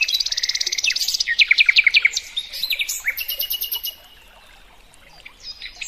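A songbird singing: a fast, buzzy trill, then a run of quick downward-sliding whistled notes, then another rapid trill, going quieter for about a second and a half before it picks up again at the very end.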